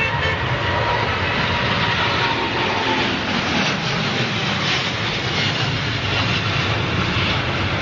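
Airplane noise: a steady, loud rushing of engines and air, with faint high tones in the first few seconds.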